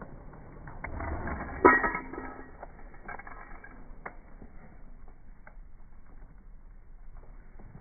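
Metal tools and parts clanking and scraping, with one loud ringing clang a little under two seconds in, then a few lighter clicks.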